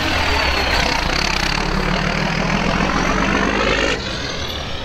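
A motor vehicle's engine running steadily, dropping a little in level about four seconds in.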